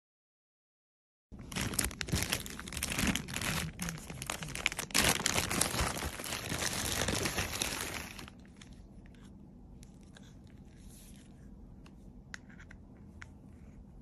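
Plastic parcel packaging crinkling and tearing as it is unwrapped, starting suddenly about a second in and stopping about eight seconds in. After that, quiet handling with a few light clicks.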